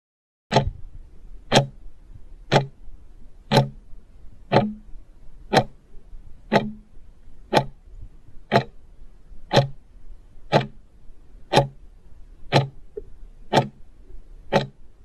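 Clock ticking sound effect, evenly once a second, fourteen ticks: a quiz countdown timer running while the viewer answers.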